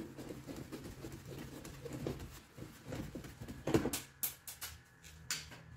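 Gloved hands working plastic parts at a car's wheel arch liner while fitting a moulded mud flap: irregular rustling and scraping with a few sharp clicks and knocks, the loudest about four seconds in.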